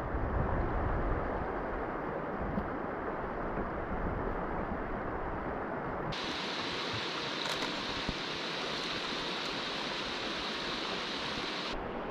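Steady rush of river current flowing over a shallow rocky streambed. A brighter hiss joins about halfway through and drops away just before the end.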